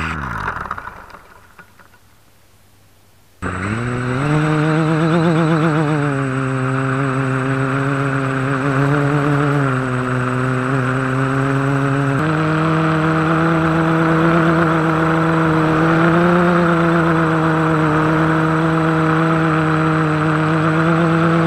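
Quadcopter's electric motors and propellers whining down in pitch and stopping as the craft sits in the grass. After a couple of seconds of quiet they cut back in and run steadily in flight, the whine wavering up and down with the throttle, with a sudden drop in pitch about twelve seconds in.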